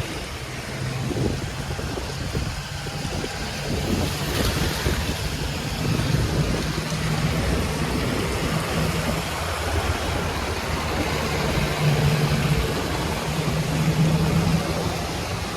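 Motor vehicle engines running steadily in slow traffic, with a low engine hum that swells a couple of times, over a constant background rush of noise.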